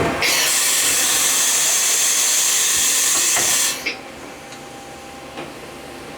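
Mitsui Seiki HS3A horizontal CNC machining center letting out a loud hiss of air for about three and a half seconds, which cuts off abruptly. Under it runs the machine's steady hum, with a few light ticks after the hiss stops.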